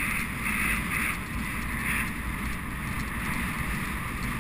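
Wind rushing over a rider's helmet-camera microphone on a galloping racehorse, with a rhythmic beat about twice a second from the horse's stride that fades about halfway through.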